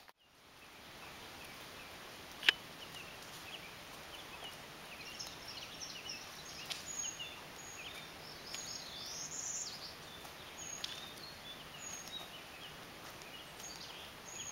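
Faint outdoor ambience with many short, high bird chirps scattered through, thickest in the second half. A single sharp click comes about two and a half seconds in.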